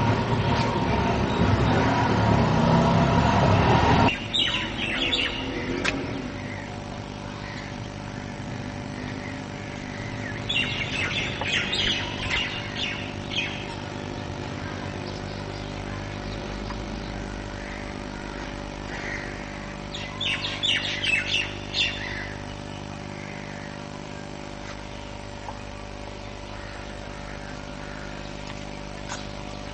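Birds chirping in short bursts, three times: just after four seconds in, around eleven to thirteen seconds, and around twenty to twenty-two seconds. A loud rumbling noise before the first burst cuts off suddenly about four seconds in.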